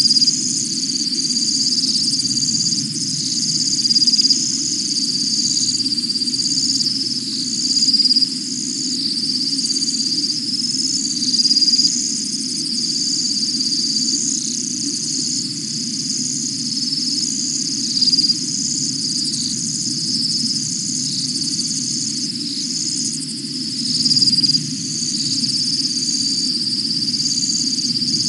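Night chorus of insects and frogs at a waterhole: a steady, shrill, high-pitched trilling in two bands that briefly drop out again and again, over a low steady chorus, swelling louder every few seconds.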